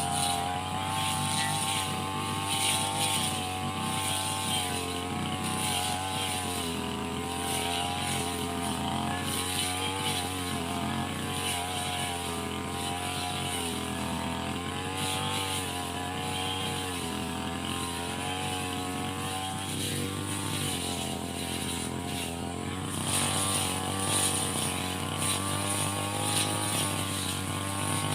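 Brush cutter's small engine running steadily while clearing grass, its pitch wavering up and down, a little louder near the end.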